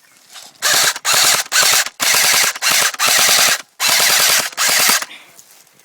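Airsoft rifle styled as a sniper rifle firing on full auto: five bursts of rapid clattering shots, the longest about a second and a half.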